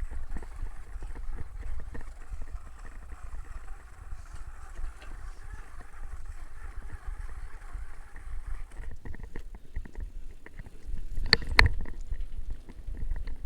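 Riding a bicycle on a rough track: wind buffeting the microphone over a steady hiss from the tyres that drops away about nine seconds in, with scattered rattles and a few loud sharp knocks near the end.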